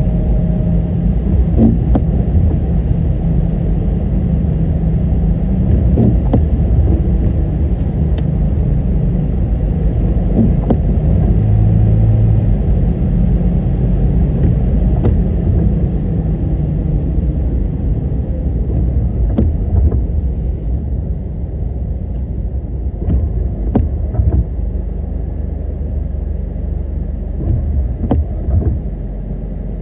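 Steady low road and engine rumble of a car driving, heard from inside, with a few scattered sharp clicks and knocks.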